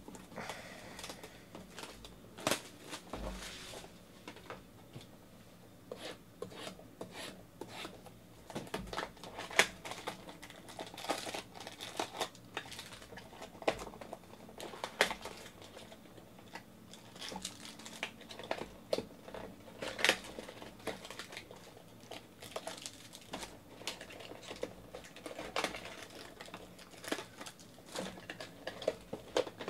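Plastic shrink-wrap torn off a cardboard box of trading cards, then the box opened and plastic-wrapped card packs pulled out and handled. It is a run of irregular crinkling, tearing and crackling with sharp snaps and taps.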